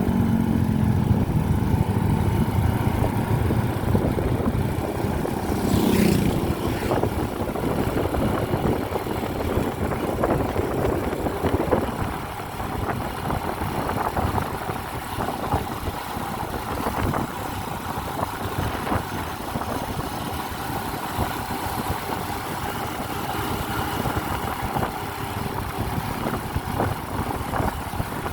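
A vehicle's engine running with a steady low rumble, somewhat louder for the first dozen seconds and then easing off a little.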